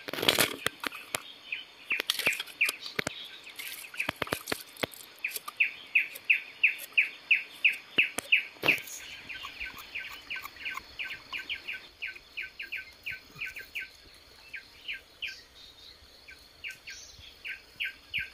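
A bird calling in long runs of short, quick chirps, about four a second, over a steady high insect drone. A few sharp knocks and clatters come in the first five seconds and once more about nine seconds in.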